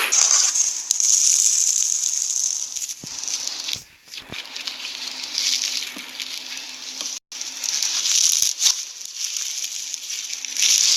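Slime being squeezed and worked by hand: a dense stream of small crackles and pops with a few sharper clicks. The sound cuts out for an instant about seven seconds in.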